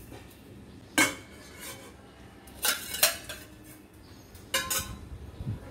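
Stainless steel bowls and plates clinking and clattering against each other as they are set down and stacked, in three bursts: one about a second in, a pair near the middle, and a cluster past four seconds.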